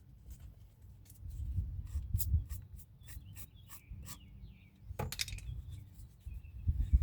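A series of short rubbing or scraping strokes, about two to three a second, followed by one louder scrape about five seconds in. Birds chirp faintly in the background.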